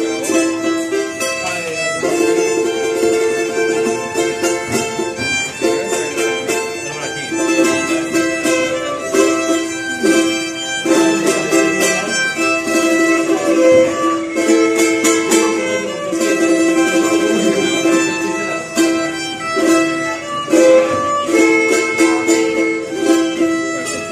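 Violin bowing a sustained melody over a small guitar-like string instrument being strummed in rhythm, played live as a duet.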